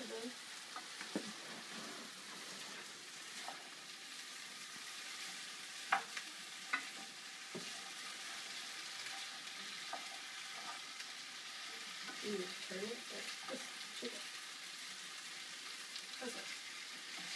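Diced potatoes and onions frying in a pan with a steady sizzle while being stirred with a spoon. A few sharp clicks of the spoon against the pan come about six to eight seconds in.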